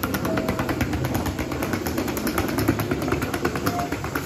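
Footsteps of many people walking along a train station platform, over a steady low rumble.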